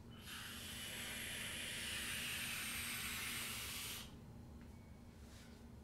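Box-mod vape fired during one long drag: a steady hiss of air drawn through the atomizer and e-liquid vaporizing on the coil. It lasts about four seconds and cuts off sharply when the fire button is released.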